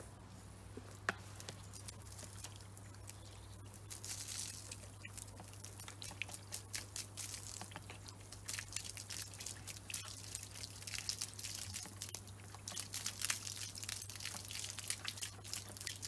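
Garden hose spraying into a shallow plastic water dish, the water splashing and dripping irregularly from about four seconds in. A single sharp click about a second in, over a low steady hum.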